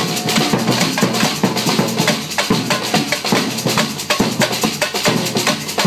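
Samba percussion band playing live: deep surdo bass drums under snare drums and a cymbal in a fast, steady groove of dense, even drum strokes.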